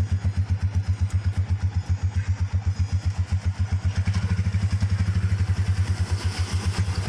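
The single-cylinder motorcycle engine of a tricycle idling with a steady low exhaust putter of about ten beats a second, quickening slightly in the second half as other motorcycles pass on the road.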